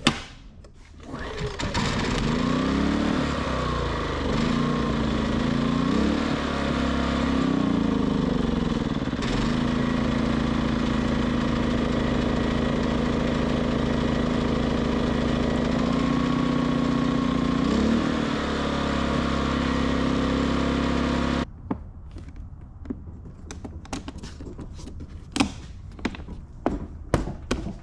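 Westinghouse iGen2500 inverter generator's small engine catches and runs, its speed hunting up and down for several seconds, settling, then wavering again before it suddenly cuts out about twenty seconds in. The surging is the sign of a partly clogged carburetor idle jet. Light clicks and knocks of handling follow.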